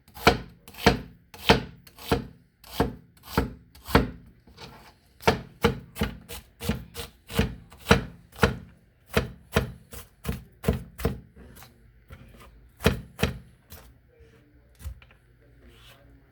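A kitchen knife chopping an onion on a cutting board, with steady strokes at about two a second that thin out to a few scattered strokes near the end.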